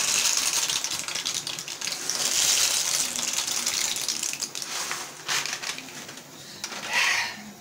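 Dry pasta pouring out of a plastic packet into a pan, a dense rattle of many small pieces with the crinkle of the packet, lasting about five seconds. A few knocks and a short louder rustle follow near the end as the pan or camera is handled.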